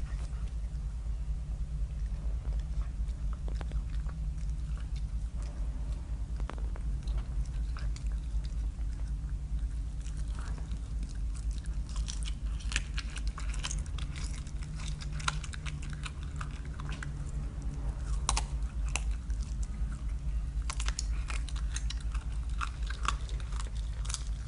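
A caracal chewing and biting raw meat, with wet chewing and sharp crunches. The crunches come thicker and louder in the second half.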